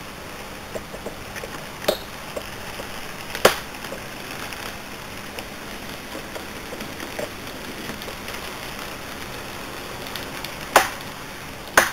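Model train, a diesel locomotive pulling passenger coaches, running along a model railway track with a steady rolling hiss. Four sharp clicks sound over it, the loudest about three and a half seconds in and a little before the end.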